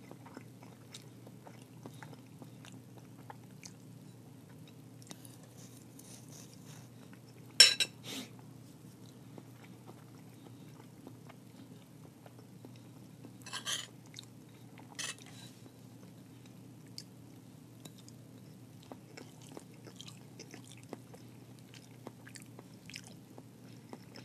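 Close-miked chewing of a mouthful of vegetable stir fry, many small wet mouth clicks over a steady low hum. A few sharper clicks stand out, the loudest about seven and a half seconds in and two more about halfway through.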